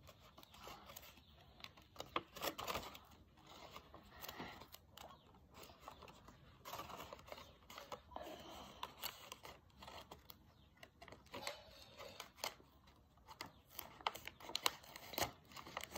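Faint rustling and crinkling of a folded paper box being handled, with scattered small clicks and crackles.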